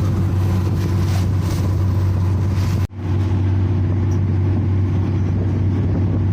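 Launch engine running with a steady low drone, its hum unchanging. Just under halfway it cuts out for an instant and returns, duller.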